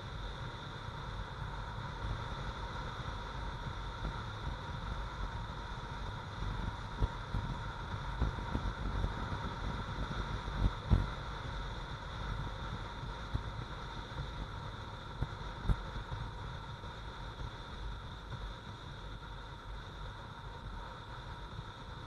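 Motorcycle on the move at road speed: steady wind rumble on a helmet-mounted microphone over the bike's engine running steadily. A few short thumps stand out about a third of the way in, around halfway and again about three-quarters through.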